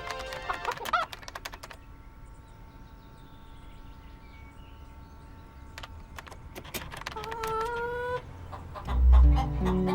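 Pet hen clucking, with scattered light clicks and taps. A short pitched call comes about seven seconds in, and a low boom near the end.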